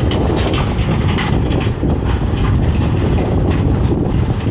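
Motorcycle on the move: a steady low engine and road rumble, with wind rushing over the helmet-mounted microphone.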